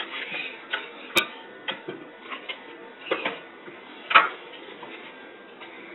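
Metal spoon scraping and tapping against a plastic bowl while rice is scooped onto a tortilla: irregular clicks and scrapes, the loudest about four seconds in.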